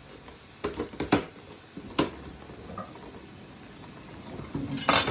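A knife blade working into a durian's spiky husk: four sharp cracks in the first two seconds, then a longer, noisier crackle near the end.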